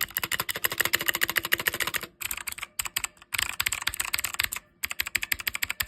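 Rapid typing on a stock, unmodified Redragon K552 mechanical keyboard: a fast run of sharp keystroke clacks, with brief pauses about two seconds in and again just before five seconds.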